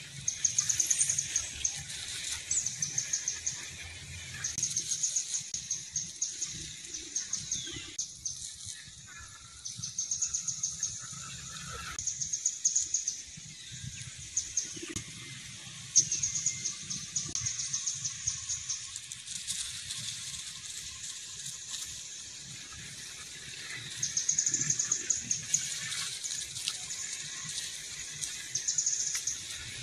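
Outdoor wildlife ambience: short, high, rapid trills of ticking repeat every few seconds, from calling birds or insects, over a faint low rumble.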